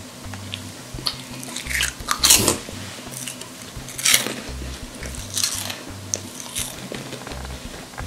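A child slurping forkfuls of fried instant noodles and chewing, with several short slurps, the loudest about two seconds in.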